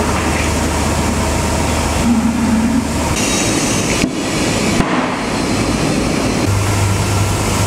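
Tyre changing machine running as a tyre is mounted onto a lubricated rim: a steady low motor hum under loud mechanical noise, changing abruptly a few times.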